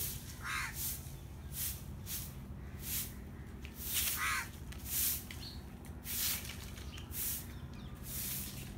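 A crow cawing twice, once about half a second in and again about four seconds in. Behind it are short hissy pulses roughly once a second over a steady low hum.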